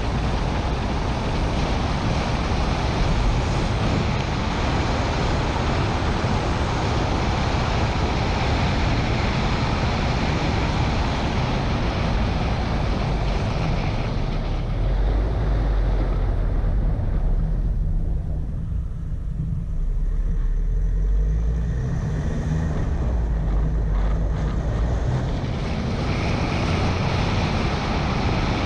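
Wind buffeting the microphone of a camera mounted on a moving car, over a steady low rumble of engine and road noise. For several seconds in the middle the hiss thins out and the low rumble comes to the fore.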